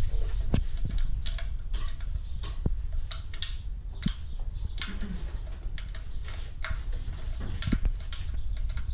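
Irregular metallic clicks and taps from hand tools working on an engine, over a steady low rumble.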